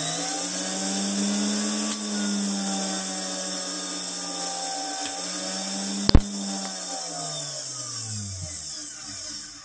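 Vintage Hamilton Beach Model 30 milkshake mixer's motor running at speed, a steady hum with a high hiss, its bearing freshly serviced. A sharp click comes about six seconds in, and the pitch then falls as the motor winds down to a stop near the end.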